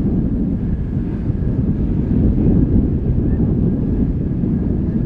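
Low, steady rumble of jet airliner engines, with wind buffeting the microphone.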